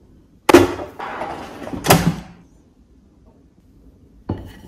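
Kitchenware knocking on a counter: two loud knocks about a second and a half apart with a scraping rustle between them, then a softer knock near the end, as a ceramic bowl of fries is handled and set down on a wooden board.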